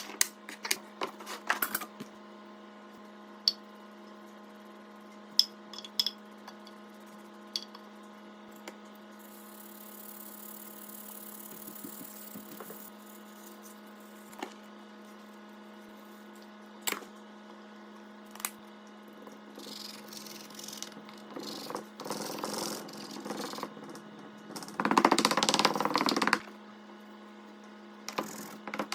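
Steady electrical hum with scattered clicks and knocks of objects being handled, and a few seconds of louder rubbing or scraping near the end.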